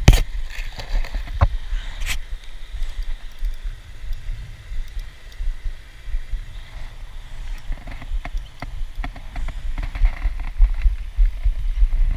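Irregular low rumble of handling or wind noise on a body-worn camera microphone, with a few sharp clicks in the first two seconds and scattered ones later.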